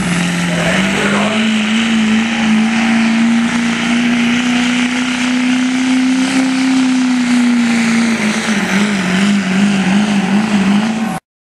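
Diesel pickup truck engine under full load, pulling a weight sled. Its steady high note climbs slowly for several seconds, then drops and wavers rapidly. The sound cuts off abruptly just before the end.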